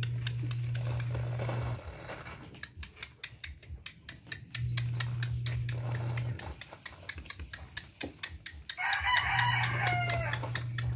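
A chicken crows once, for about a second and a half, near the end. Light scattered ticks run throughout, and a low steady hum comes and goes three times.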